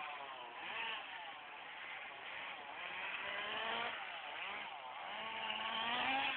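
Radio-controlled car's motor running, its whine rising and falling in pitch as the throttle changes.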